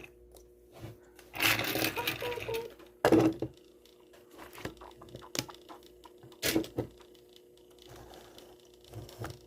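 Faint steady hum of a small motorized display turntable, with scattered clicks, taps and rustles of toy cars and packaging being handled.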